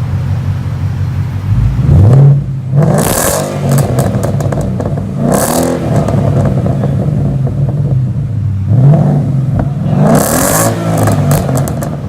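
2017 Ford Mustang GT's 5.0 V8 running through a Magnaflow exhaust with the resonator removed, revved three times, each rev rising and falling back to idle.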